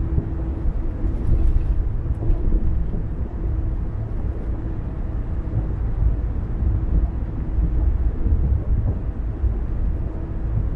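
Car driving at steady speed: continuous low road and engine rumble with a faint steady hum over it.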